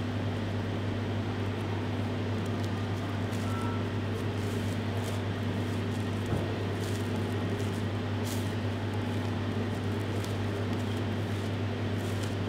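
Steady low mechanical hum of kitchen machinery, with faint scattered crinkles of cling film as it is rolled by hand on a steel counter.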